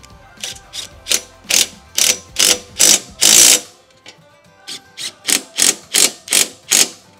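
Cordless impact wrench run down onto the go-kart frame's nuts and bolts in short trigger bursts, about two a second, ending in one longer burst about three seconds in as the nut snugs up; after a pause, a second run of short bursts on the next fastener.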